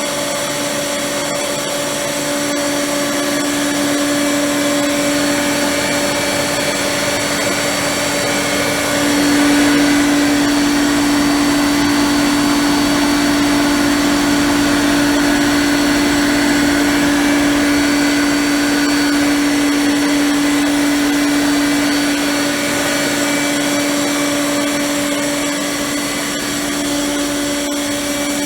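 Ingersoll Rand ML7.5 electric rotary screw air compressor (7.5 kW) running, a steady motor-and-airend hum with a clear whine, growing slightly louder about nine seconds in.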